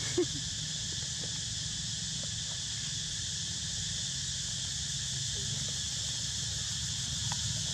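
Insects droning steadily in high, even bands over a low steady rumble, with one short pitched blip just after the start.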